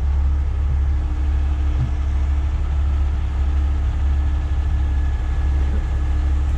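Heavy diesel engine of a 50-ton rotator tow truck running steadily at a constant speed during a lift: a deep, even rumble with a steady hum above it.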